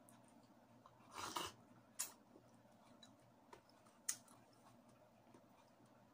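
Faint eating sounds of a mouthful of buko pandan being chewed: a short noisy mouth sound about a second in, then two sharp clicks about two seconds apart.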